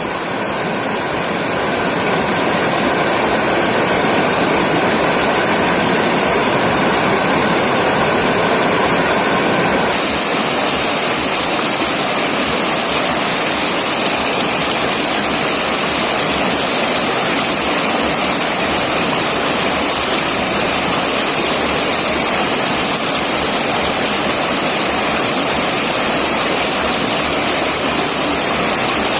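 River water rushing steadily, a dense, even wash of water noise that swells over the first few seconds.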